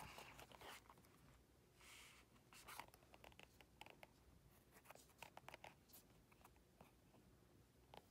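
Faint scratching and rustling of a needle and waxed thread being worked in and out of pre-punched holes in leather, with scattered small clicks and a couple of brief swishes as the thread is drawn through.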